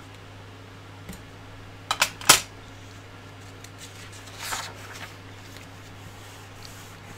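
A quick cluster of sharp clicks and taps about two seconds in, then a soft papery swish about four and a half seconds in as a page of a paper instruction manual is turned, over a low steady hum.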